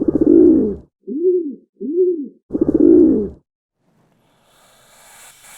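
Bird calls: a long, rapidly pulsing low call, two short notes that each rise and fall, then a second long pulsing call. A faint rushing noise begins about a second after the last call and grows slowly.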